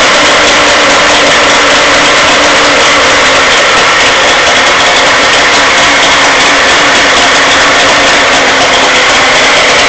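Suzuki 40 hp outboard motor running steadily on a newly fitted CDI ignition unit, loud and close, with no change in speed.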